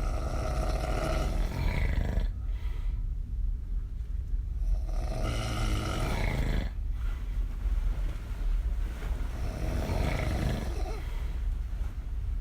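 A woman snoring hard through an open mouth while lying on her back: three long, rough snores, each about two seconds, coming about every four and a half seconds.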